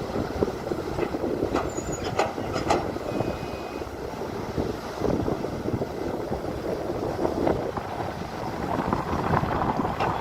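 Excavator working: its diesel engine runs steadily under load, with a few sharp metallic clanks about one and a half to three seconds in.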